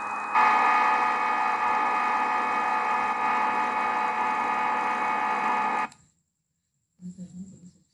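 SwanSoft CNC simulator's machining sound effect as the simulated vertical milling machine runs its program in auto mode: a steady hum of several tones. It steps up in level just after the start and cuts off suddenly about six seconds in.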